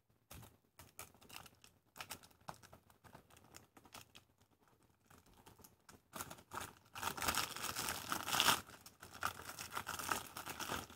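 Plastic wrapping on a DVD case crinkling and tearing as it is handled and pulled off by hand. There are sparse faint crackles at first, then denser, louder crinkling from about six seconds in.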